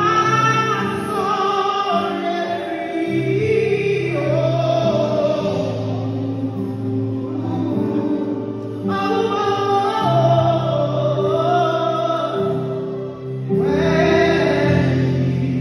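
Live gospel worship song: a woman sings lead into a microphone in long phrases over sustained keyboard chords, with backing singers joining in.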